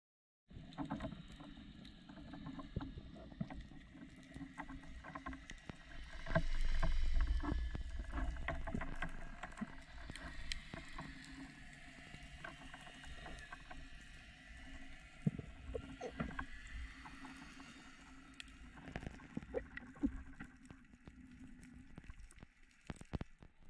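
Underwater ambience over a rocky seabed: a dense, irregular crackle of clicks over a steady low hum. It starts about half a second in, and a louder low rumble comes about six to nine seconds in.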